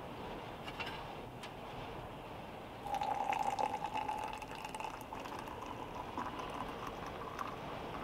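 Hot water poured from a kettle into a ceramic mug of coffee granules, starting suddenly about three seconds in and running on steadily, with a tone that edges up slightly as the mug fills. A couple of light clicks come before the pour.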